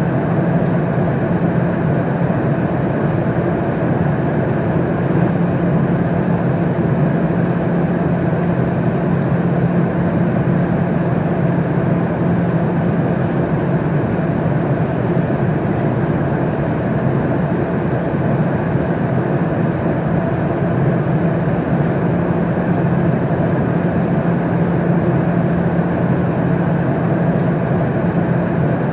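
Airliner cabin noise in flight: a steady, even rush of engine and air noise with a low hum, unchanging throughout.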